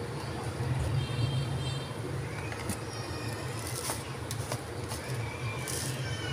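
A steady low hum, with faint short chirps and thin whistle-like tones over it.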